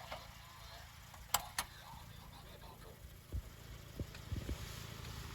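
A car running with a steady low rumble, with two sharp clicks about a second and a half in and a few low thumps later.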